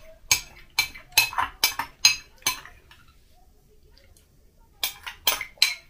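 Metal spoon clinking and scraping against a glass bowl of soup: about eight quick clinks in the first two and a half seconds, a pause, then a few more near the end.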